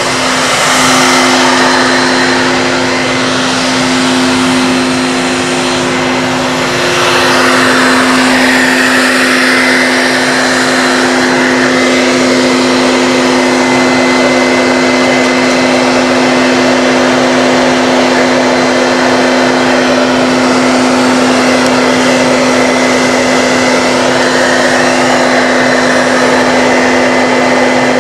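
Loud, steady whine of an electric motor blowing air: a rushing hiss with two steady hum tones under it, growing louder about seven seconds in.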